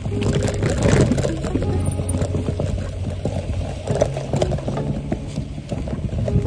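Bicycle rattling and knocking as it rides over bumpy dirt and grass, with music's held bass notes underneath.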